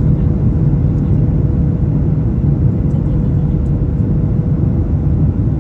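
Boeing 737 cabin noise: a steady, loud rumble from the engines and airflow, with a faint steady hum above it.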